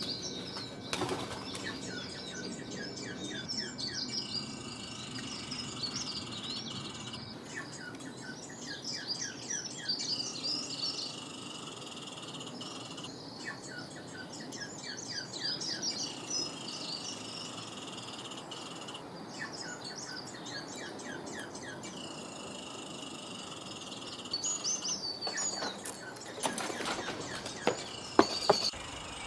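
Many high chirps and trills overlapping, with repeated quick runs of short falling notes, over a steady layer of high whistling tones. A few sharp clicks come near the end and are the loudest sounds.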